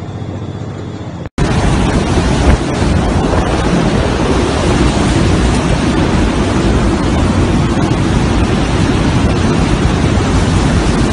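A car's engine hums from inside the cabin for about a second. It then gives way abruptly to a loud, steady rush of hurricane wind on the microphone.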